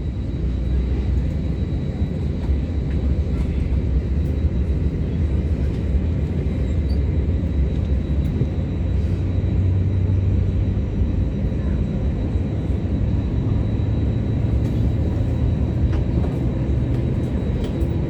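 Steady low rumble of airliner cabin noise inside an Airbus A321 on the ground, with its jet engines and air systems running at low power rather than takeoff thrust. A faint high steady whine runs through it.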